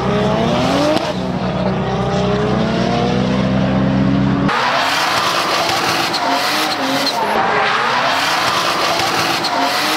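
Drift cars at full effort: an engine revving with its pitch climbing over the first few seconds, then, after an abrupt change about four and a half seconds in, tyres squealing and skidding under high-revving engines as the cars slide through a corner.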